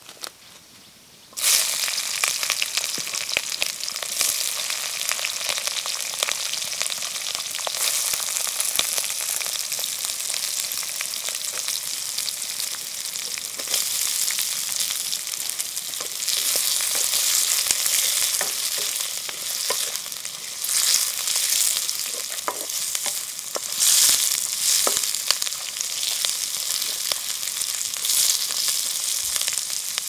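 Chopped onions, carrots and green chillies frying in hot oil in a kadai: a loud sizzle starts suddenly about a second and a half in and keeps on, with the wooden spatula scraping and stirring through it.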